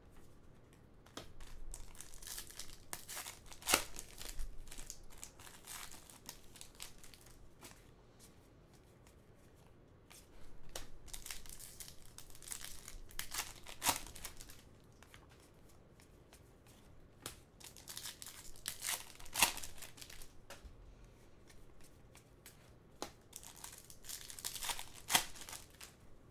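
Foil wrappers of trading-card packs crinkling and tearing open by hand, mixed with cards being slid and flicked through; irregular rustles and sharp clicks.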